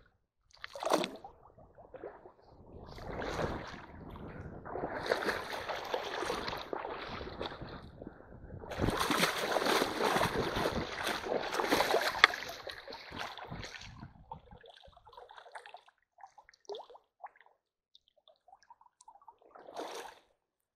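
Shallow stream water splashing and sloshing in two long bouts as feet wade and kick through the water in front of a hand net. After that come scattered drips and trickles as the net is lifted out of the water.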